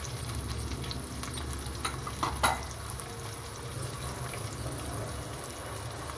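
Chopped onions frying in hot oil in an aluminium pressure-cooker pot: a steady soft sizzle, with a few sharper crackles about two seconds in.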